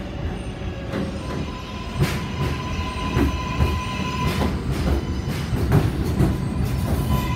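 A New York City Subway R142-series train pulling into the station, with a low rumble and repeated sharp clicks of the wheels over the rail joints. A steady high whine runs for about three seconds from about a second and a half in.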